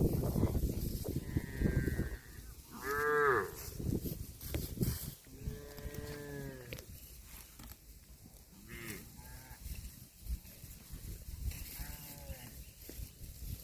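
Calves mooing in short, fairly high-pitched calls: one about three seconds in, a longer one around six seconds, and shorter ones near nine and twelve seconds. A low rumbling noise fills the first two seconds.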